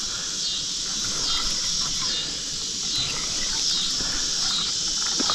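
Insect chorus: a steady high-pitched buzz with a chirp that repeats about every half second to a second.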